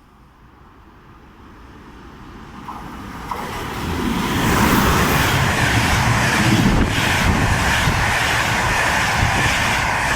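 Train approaching and passing close by: its noise grows steadily louder over about four seconds, then holds loud as a continuous rumble and rush.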